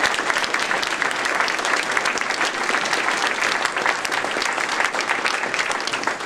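Audience applauding steadily, a dense patter of many hands clapping in a large room, easing off at the very end.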